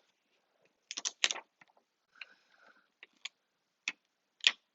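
Irregular small clicks and taps of fingers and tools handling an iPhone 6s frame and its adhesive display seal while the seal is repositioned, about eight in all, the loudest a little past one second and near the end, with a faint rustle between some of them.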